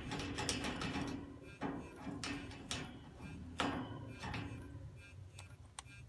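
Parrots eating: irregular sharp clicks and crunches of beaks working at food, about half a dozen spread over a few seconds.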